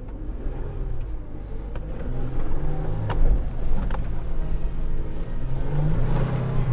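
Toyota 4Runner's engine working hard under load, its revs rising and falling in steps as the truck climbs a steep, muddy, rutted slope with the rear locker engaged. A few short knocks from the truck bumping over the ruts.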